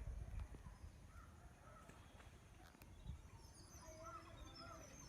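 Near silence with faint bird calls: short chirps that rise and fall, more of them in the second half.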